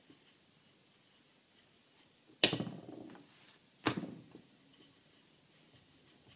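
A wooden rolling pin knocking twice on a stone countertop, about a second and a half apart, each knock followed by a short rattle as it settles. Otherwise only faint room sound.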